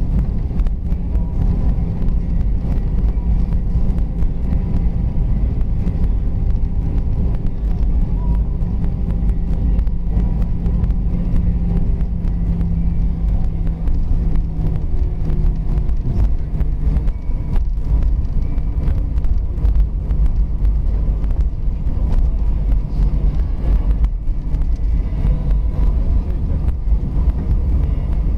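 Cabin noise inside an Airbus A320 moving on the ground after landing: a steady low rumble with a faint engine whine on a few held tones.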